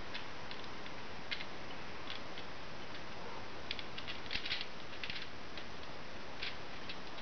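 Thin aluminium-foil printing plate crinkling in short, irregular crackles as it is peeled off a freshly pulled print, most of them in a cluster a little past the middle. A steady hiss lies under it.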